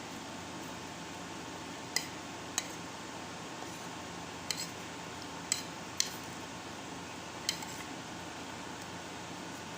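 Dishes clinking: six light, sharp clinks spread irregularly over several seconds, over a steady background hiss.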